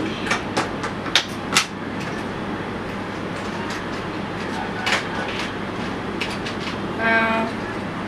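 Plastic kit parts clicking and rattling as a hand rummages through them in a cardboard box, a few sharp clicks standing out over a steady background hiss. A short pitched sound comes near the end.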